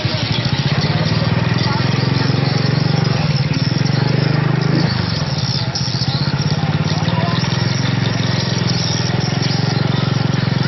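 Small motorbike engine running at low speed, a steady low drone with a brief dip in pitch about five seconds in.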